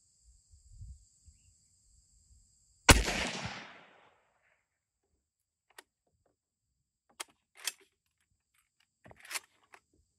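A single rifle shot from a World War II Japanese 7.7 mm Arisaka bolt-action rifle, with a short echoing tail. Some seconds later come a few sharp metallic clicks and clacks as the bolt is worked to chamber the next round. Insects chirp steadily before the shot.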